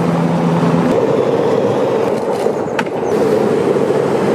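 Skateboard wheels rolling steadily over pavement, with a low steady hum in the first second.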